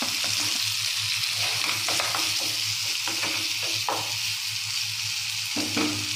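Thick onion-tomato masala frying in oil in a non-stick kadai, with a steady sizzle. A wooden spatula stirs fried potato pieces through it, making scattered soft scrapes and knocks against the pan.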